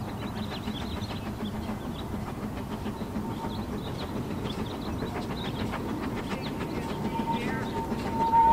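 Narrow-gauge steam locomotive working with its train in the distance, exhaust chuffs and rolling stock over a steady rumble, with a thin high whistle tone that comes in partway through and swells near the end.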